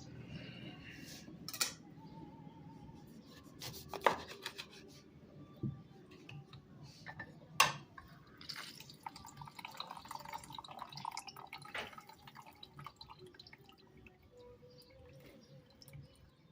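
Kitchen handling sounds: a few sharp clinks and knocks of kitchenware, loudest in the first half, among softer ticks and faint dripping water.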